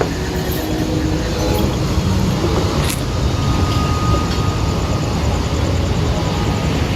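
Steady rumble and hiss of a vehicle in motion, with a brief high tick about three seconds in.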